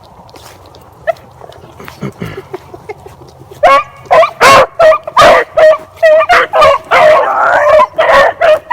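Beagles baying on a rabbit's trail: quiet with light rustling at first, then about three and a half seconds in the hounds open up in loud, rapid, repeated cries that keep going.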